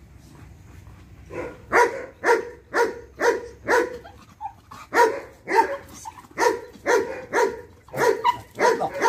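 A dog barking in a steady run of about two barks a second. The barks start about a second and a half in, with a short break midway.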